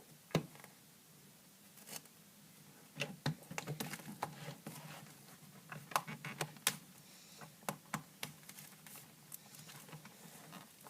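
Fingers picking at and peeling a sticker seal off a package of paper sheets: faint, irregular small clicks, scratches and crinkles.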